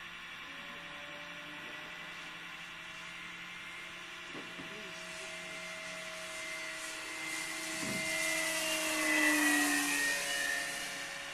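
Electric radio-controlled Cessna model's motor and propeller whining as it flies past, growing louder to a peak about nine seconds in, with the pitch dropping as it goes by.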